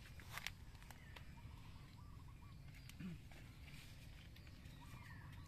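Near silence: quiet outdoor ambience with a few faint clicks about half a second in and faint, brief bird calls.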